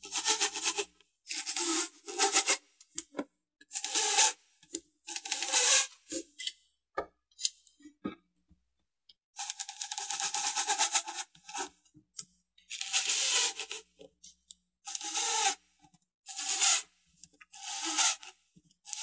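Cordless impact driver driving small hinge screws into oak without pilot holes. It runs in a series of short bursts, each a half second to two seconds long with a pause between, as each screw is run in.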